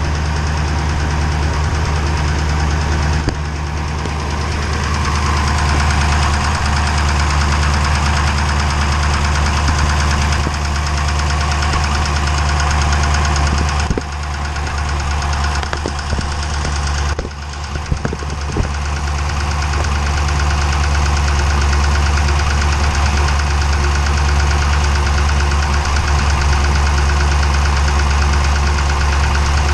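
392 cubic-inch V8 running steadily with a knock, a diesel-like clatter that the owner says such an engine should not make, at only about 1,400 miles.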